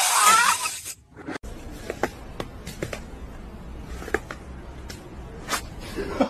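A rubber modelling balloon squeaking as it is rubbed and twisted, stopping about a second in. It is followed by a faint low rumble with scattered light clicks and scrapes.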